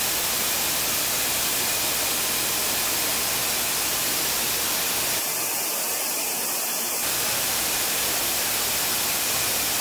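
Steady, even hiss of industrial yarn-production machinery running in a BCF plant, with no clear rhythm or tone.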